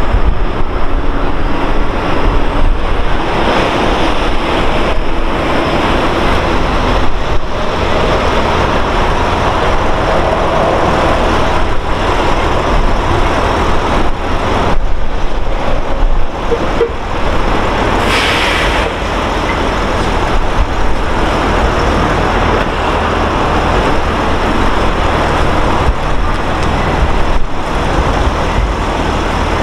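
Steady road traffic and vehicle engine noise, with a red fire-department bus pulling away near the start. A short hiss about eighteen seconds in.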